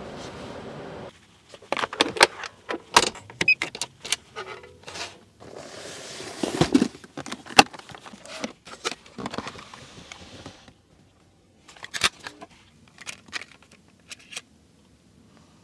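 A steady whir that cuts off about a second in, then a string of clicks, knocks and rattles from the rear cabin trim of a 1997 Toyota Century being handled: the centre armrest lid, its control buttons and a small handheld unit. The handling sounds come in clusters and thin out near the end.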